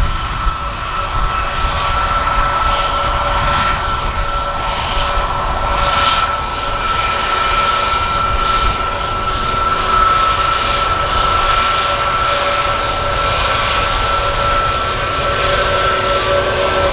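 Airbus A320's jet engines running with a steady whine that holds its pitch, over a fluttering low rumble of wind on the microphone.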